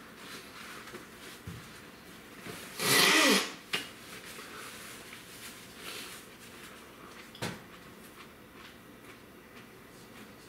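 A man lets out a short, loud, breathy voiced exhale about three seconds in, a reaction to the heat of a ghost pepper he is eating. Two sharp knocks follow, one just after it and one about seven seconds in.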